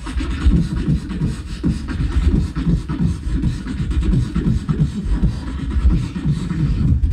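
A beatbox crew performing live into microphones: several beatboxers layering a fast, steady beat of deep bass kicks and vocal percussion, amplified through the stage PA.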